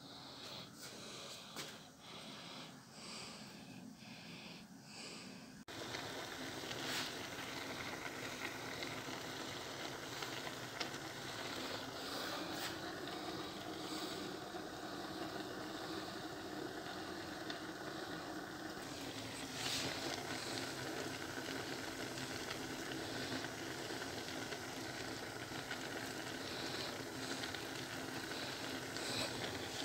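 A steady hiss of a pot of cabbage cooking on the stove, setting in about six seconds in after a quieter start, with a few faint clicks over it.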